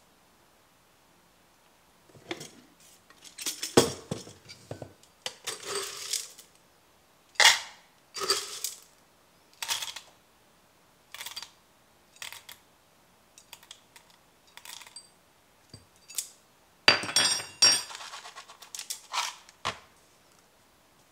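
A series of separate clinks, clicks and short rattles from handling a stainless-steel coffee canister, its lid and a small cup while measuring out coffee beans, with a denser rattle about seventeen seconds in.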